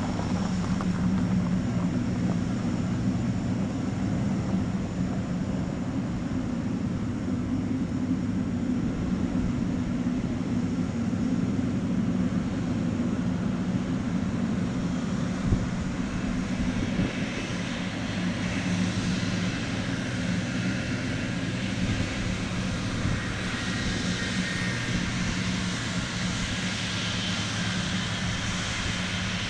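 Boeing 777-200ER's GE90 turbofan jet engines running as a steady low drone. A higher rushing whine builds from about halfway through. A single brief click comes near the middle.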